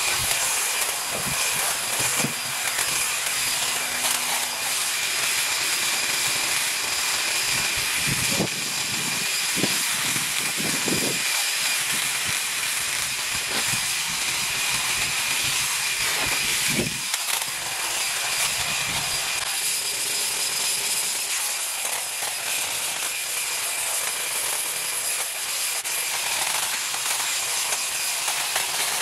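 Motorized yard-work tool running at steady high speed: a constant hiss with a high whine, and a few short knocks about a third of the way in and again past halfway.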